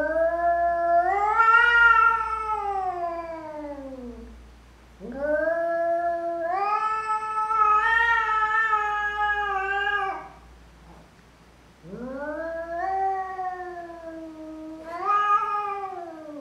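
Domestic tabby cat giving three long, wavering yowls, each rising and then slowly falling in pitch, with short pauses between them. These are threat yowls at its own reflection in a mirror, which it takes for a rival cat.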